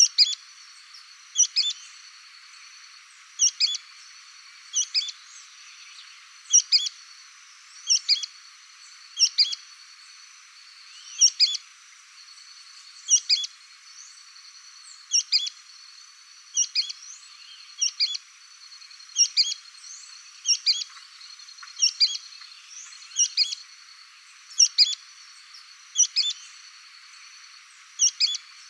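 Sooty-fronted spinetail (petrim) singing its short, sharp two-part 'pe-trim' call over and over, about once every one and a half seconds, over a faint steady high insect buzz.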